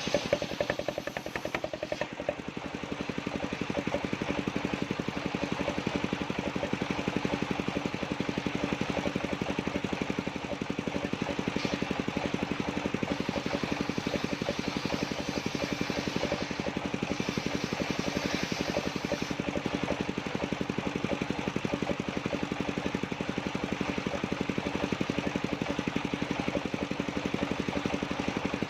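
The engine driving a sawmill circular saw runs steadily at an even pace, with a held hum; a few sharp knocks sound in the first couple of seconds.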